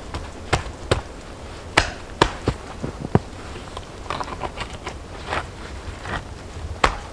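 Flat stones clacking and knocking against each other as they are set and shifted on a dry stone wall: a run of irregular sharp knocks.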